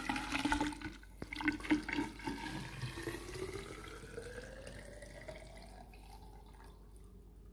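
Water poured from a jug into the funnel of a collapsible plastic urine bottle. It splashes at first, then settles into a steady pour whose pitch rises as the bottle fills, and fades near the end.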